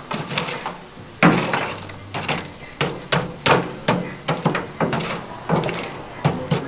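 Metal poker knocking and raking through burning charcoal in a steel drum grill: a run of irregular clanks and knocks, about two a second, the loudest a little over a second in.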